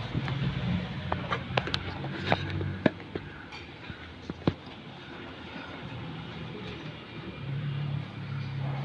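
Several sharp metallic clicks and knocks from hand tools working on the exposed timing end of a small car engine, over a steady low hum in the background.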